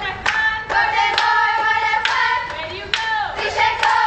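A group of restaurant staff singing a birthday song together, clapping in time at about two claps a second.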